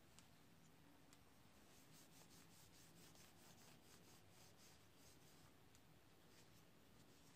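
Faint rubbing of a cloth along a wooden knife handle, buffing it, with a run of quick repeated strokes in the middle.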